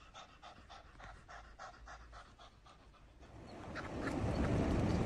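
A cat panting quickly and faintly, about four breaths a second. After about three seconds the panting gives way to a whooshing transition noise that rises steadily in loudness.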